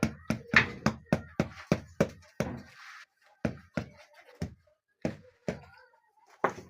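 Repeated sharp knocks of a hand tool striking the floor work during tiling, fast and even, about three a second, then slowing to roughly two a second after a short pause.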